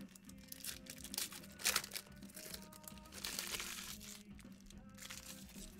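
Trading cards being handled and dealt onto stacks: irregular rustling and flicking of card stock, with a sharper rustle a little under two seconds in.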